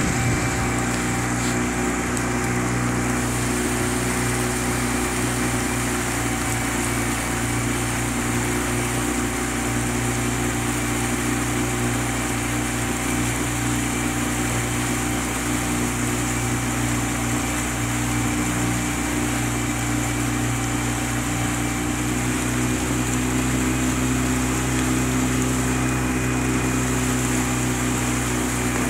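Small outboard motor running at a steady speed, heard from aboard the boat it drives: an even drone with several steady low tones that holds without change.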